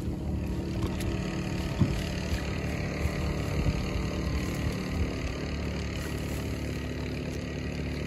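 A boat engine idling steadily, with one sharp knock about two seconds in.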